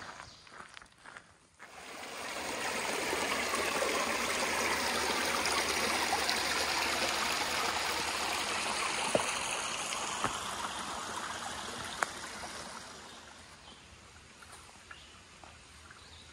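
Small rocky mountain stream rushing and splashing over stones, coming up about two seconds in and fading away after about twelve seconds. A few sharp clicks sound over it.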